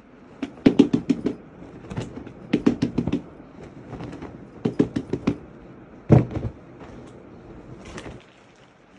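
Unstitched suiting fabric being unfolded and shaken out by hand, rustling and flapping in about five short crackly spells, the loudest a sharp flap about six seconds in.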